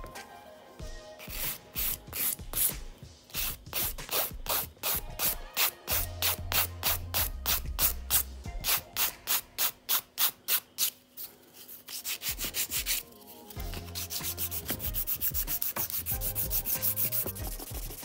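Hand board file rasping back and forth over a sculpted acrylic stiletto nail, rounding and shaping it. The strokes are short and even, about three to four a second, with a couple of brief pauses, and they come quicker and closer together near the end.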